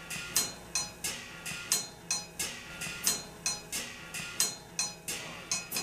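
Rhythmic metallic percussion: sharp strikes about two a second, each with a bright ringing tone, setting the beat of a music intro.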